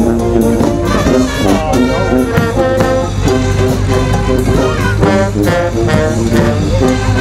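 A small brass band with trumpet and trombone playing a lively jazz tune, over the low, steady rumble of a vintage car's engine idling.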